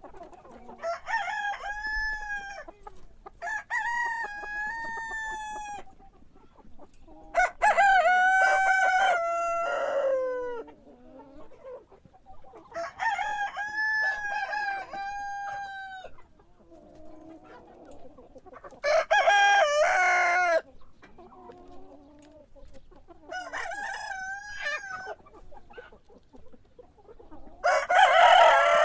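Roosters crowing repeatedly, about seven long cock-a-doodle-doo crows a few seconds apart, with fainter sounds between the crows.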